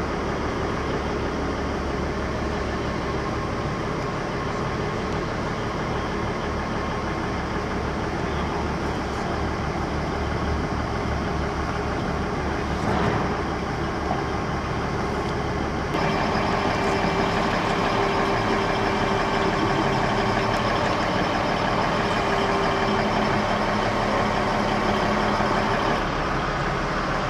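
Crane's engine running steadily while it holds a fibreglass pool shell on its cables. About halfway through, the sound shifts abruptly to a louder, brighter drone.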